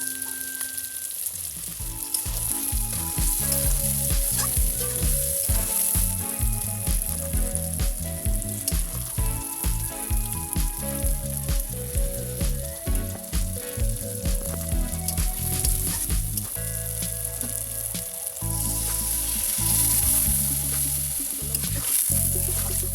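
Food frying in hot oil in a pan over a clay chulha, a steady sizzle, with a stirring sound. Background music with a steady beat plays over it.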